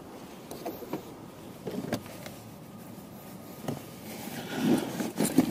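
Handling noise inside a car's cabin: scattered small clicks and knocks as someone moves about and handles the controls by the gear lever, growing louder with rustling and thumps near the end.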